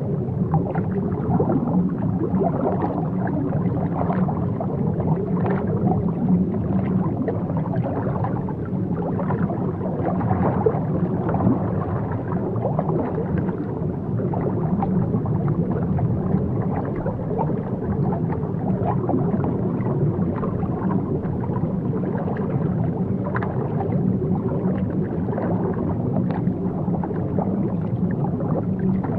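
Underwater ambience: a steady, muffled wash of water, dull and low, with a scatter of small clicks and gurgles.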